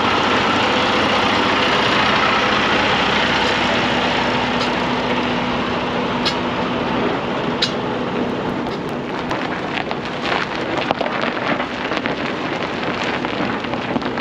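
Semi truck's diesel engine idling steadily, growing slightly fainter over the seconds. From about halfway on come scattered crunching clicks of footsteps on gravel.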